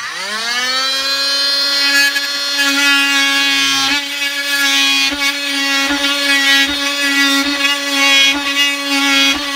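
Rockwell Sonicrafter oscillating multi-tool running and cutting through the dash plastic: a steady high whine that rises to full speed in the first moment. A few brief knocks come through it as the blade works the cut.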